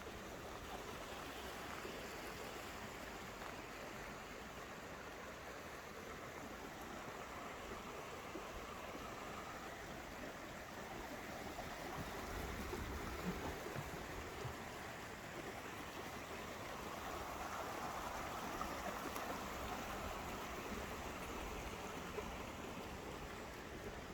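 A stream flowing in a steady wash of running water. It swells louder about halfway through and again a little later.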